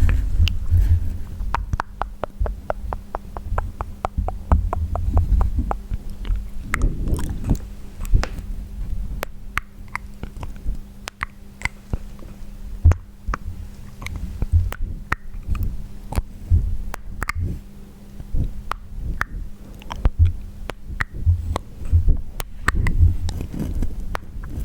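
Close-miked wet mouth sounds: tongue and lip clicks and smacks, with a quick run of clicks at about eight a second between two and five seconds in. Low thuds sit under the clicks.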